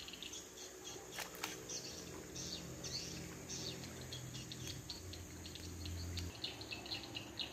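Outdoor chorus of small chirping calls from insects and birds, quick and irregular throughout. Two brief clicks come about a second in, and a low steady hum underneath stops about six seconds in.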